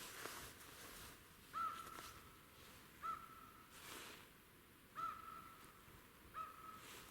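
A bird repeating a short, clear call four times, about every one and a half seconds, with faint swells of noise in between.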